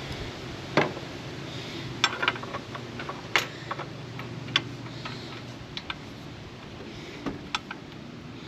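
Scattered light metallic clicks and taps at irregular intervals from hand tools and spark plugs being handled, with a faint steady hum underneath.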